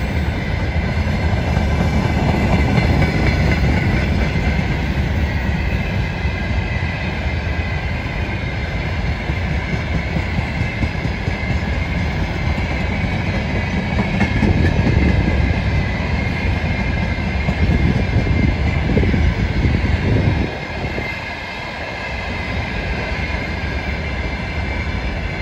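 Freight train of hopper wagons and gondola cars rolling past close by: a steady rumble of steel wheels on rail with the clickety-clack of wheels over rail joints and a faint high squeal. The rumble eases about 20 seconds in.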